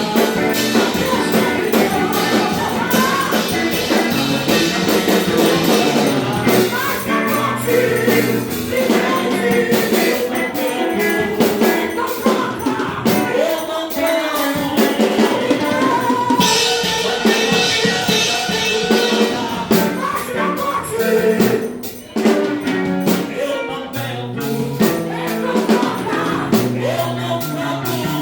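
A song with singing over drums, playing throughout with one short break about three-quarters of the way through.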